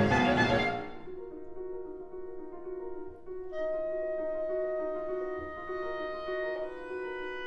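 Clarinet with piano accompaniment. A loud, busy passage breaks off about a second in, leaving soft repeated piano notes. About three and a half seconds in, the clarinet enters with a long held note over the piano.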